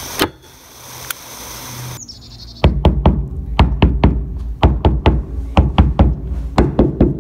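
A manual staple gun snaps twice into carpet. Then a hammer strikes quickly and repeatedly, about three or four blows a second, driving the staples flush into the carpeted boat deck.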